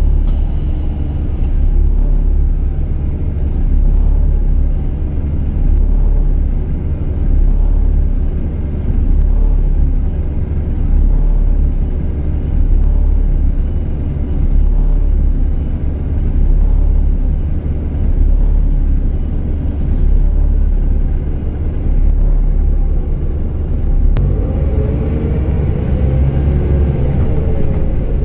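Volvo B7TL double-decker bus's diesel engine and drivetrain running, heard from inside the passenger saloon: a loud steady low rumble that swells and eases every couple of seconds. In the last few seconds an engine note rises and then falls.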